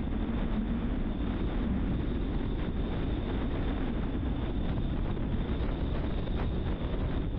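Steady rumble of a car driving along a road: tyre and road noise with some wind.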